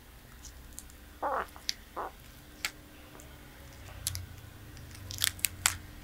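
A tortoise biting and chewing food, making separate crunches and sharp clicks with short gaps between them. The loudest, sharpest clicks come as a quick cluster near the end.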